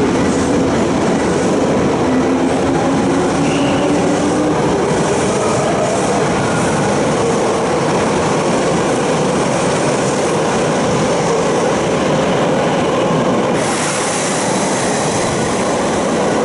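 Toei 5300 series subway train running through an underground station platform at speed without stopping: a loud, steady rolling rumble of wheels on rail with some wheel squeal and clatter, echoing in the station box. Near the end the noise shifts and eases slightly as the last car goes by.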